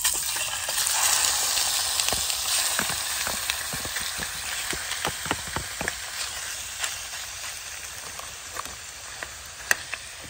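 Chunks of cod, smoked haddock and salmon frying in hot olive oil in a pan: a steady sizzle full of crackles and pops, freshly added fish, gradually growing quieter, with a couple of sharper pops near the end.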